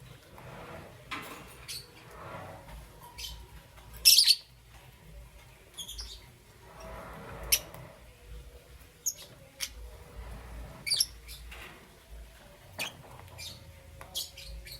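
Lovebirds giving short, sharp, high chirps and squawks at irregular intervals, the loudest a burst about four seconds in, with softer scuffling noises between calls.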